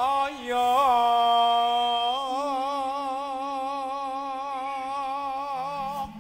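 A man singing solo, unaccompanied, holding long notes with a wide, wavering vibrato in Javanese campursari style. A few steady low instrument notes come in near the end.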